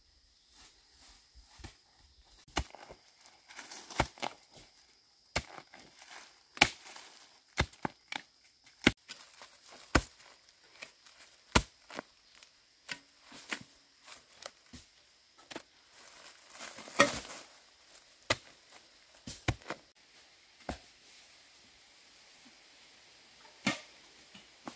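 A long-handled metal digging tool chopping and prying into soil and roots to dig out bamboo shoots: sharp, irregular strikes, often about a second apart, with dry bamboo leaves rustling between them. The strikes thin out about 20 seconds in.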